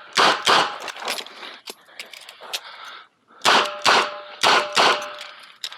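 Smith & Wesson 929 9mm revolver firing fast pairs of shots: two early on, then a pause of about three seconds with small clicks, then four more. After the later shots a metallic ring carries on.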